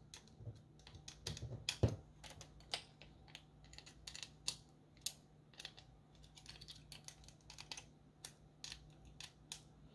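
A small precision screwdriver turning tiny machine screws through a caster and its metal spacers into an acrylic robot chassis. It makes a run of faint, irregular light clicks and ticks, with one sharper click about two seconds in.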